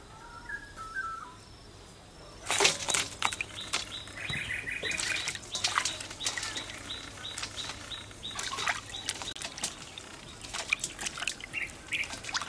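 Water splashing and sloshing in a metal basin as hands rinse a batch of hard-shelled giant water bugs, with many sharp clicks and knocks of the bugs against one another and the basin. Faint bird chirps come just before the washing starts, about two seconds in.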